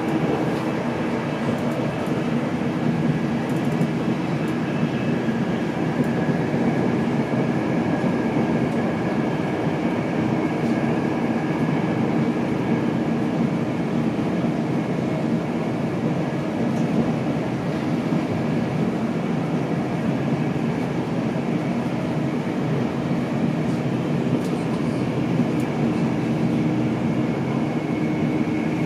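Steady running noise heard inside a Mark 4 coach of an InterCity 225 train travelling at speed: a continuous rumble of wheels on rail, with a faint high steady whine over it.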